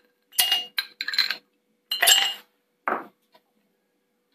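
Ice cubes dropped into glass mugs, a series of sharp glassy clinks, followed about three seconds in by a duller knock.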